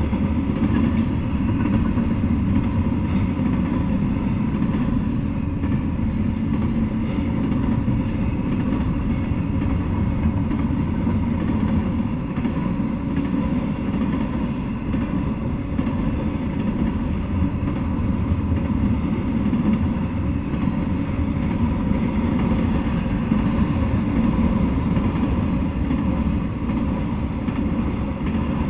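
Intermodal freight train rolling past: a steady low rumble of steel wheels on the rails as container and trailer cars go by.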